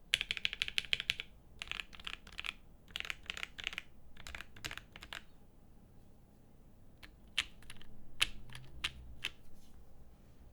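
Typing on a plateless F2-84 mechanical keyboard with lubed Gateron Ink Black V2 linear switches and GMK Space Cadet keycaps: quick runs of keystrokes for about five seconds, a pause, then a handful of single key presses.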